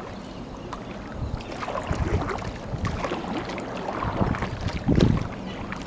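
Kayak being paddled: paddle strokes swishing and splashing in calm water, with wind gusting on the microphone. The strongest swell comes about five seconds in.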